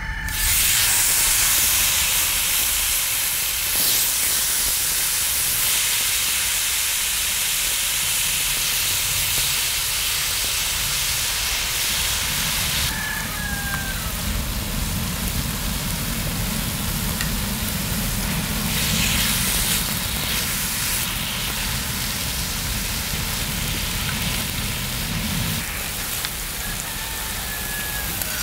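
Marinated pork and vegetables sizzling loudly on a hot cast-iron cauldron-lid griddle, starting suddenly as the meat hits the lid and then going on as a steady hiss while it fries.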